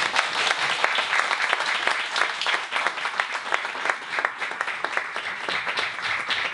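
Small audience applauding, many hands clapping steadily.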